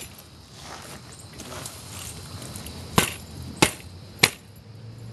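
Three sharp knocks, the first about three seconds in and the next two following about two-thirds of a second apart each, over a low background hiss.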